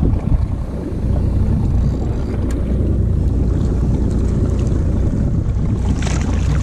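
Wind buffeting the microphone as a steady low rumble, with water washing against the hull of a small fibreglass boat.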